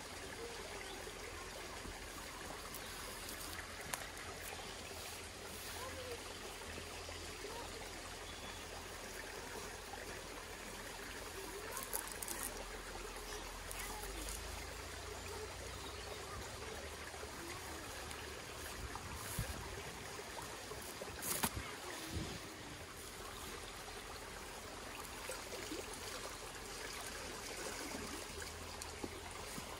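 Small rocky stream trickling steadily, with a few brief ticks and knocks from the rope being handled.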